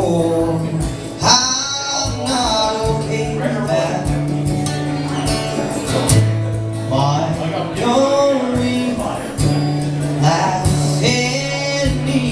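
Live song: a singer over guitar accompaniment with long held low bass notes underneath.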